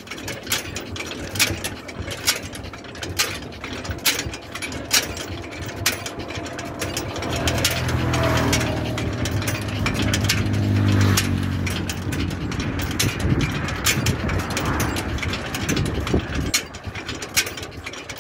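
Camel cart rolling on a paved road, its shafts and hanging chain rattling and clicking irregularly. A motor vehicle's engine rises and fades as it passes from about halfway through, with a falling pitch.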